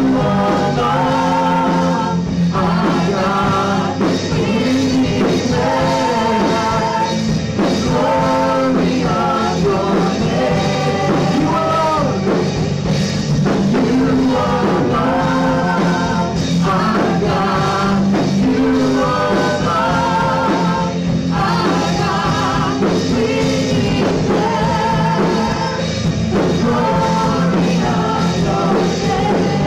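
Live worship band playing a rock-style song: several vocalists singing a melody together over guitar and keyboard accompaniment with a steady bass line.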